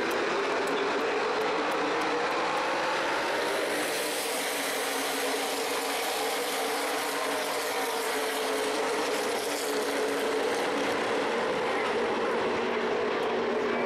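A pack of NASCAR Nationwide stock cars' V8 engines running around the track together, a steady continuous drone whose pitch slowly rises and falls as the field goes by.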